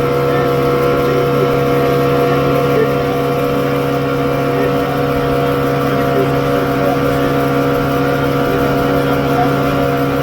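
Motorboat engine running steadily at a constant speed, with a steady hum and drone.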